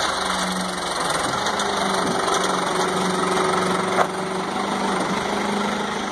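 Diesel engine of a Gradall 534C-9 telehandler running at a steady speed, its pitch shifting slightly a couple of times, with one sharp click about four seconds in.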